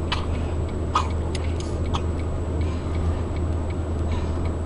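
Car's turn-signal or hazard indicator clicking about once a second over a steady low engine hum, heard inside the cabin of the stopped car.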